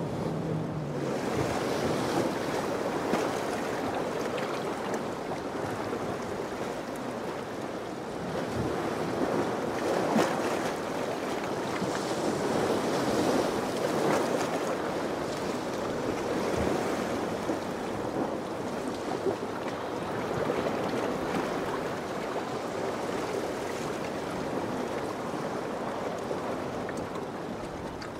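Surf washing and breaking, with wind buffeting the microphone; the noise swells and eases every few seconds.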